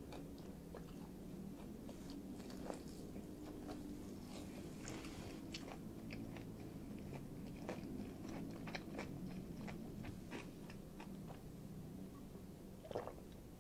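Close-up chewing of a crisp deep-fried breaded piece, with many small sharp crunches and wet mouth sounds. Near the end come a few louder swallowing sounds as she drinks from a glass mug.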